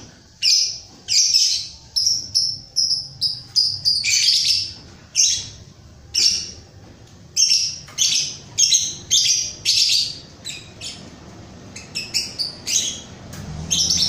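Lovebird calling in a rapid string of shrill, sharp chirps, some coming in quick clusters and others spaced by short pauses.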